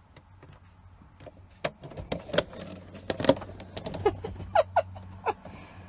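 Scattered clicks and clacks of hands working the combination lock on a plastic locking medicine box and handling the box. A few short squeaks come about four to five seconds in.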